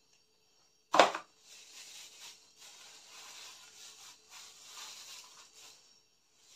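Clear plastic bags rustling and crinkling in bursts as sandals are pulled out of their wrapping. A single sharp knock sounds about a second in, louder than everything else.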